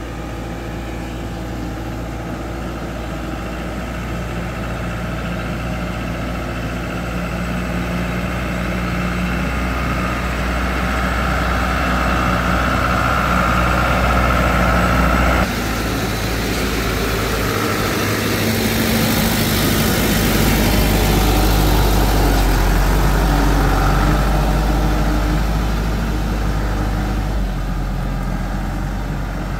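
A vehicle engine running steadily, growing louder toward the middle. The sound changes abruptly about halfway through.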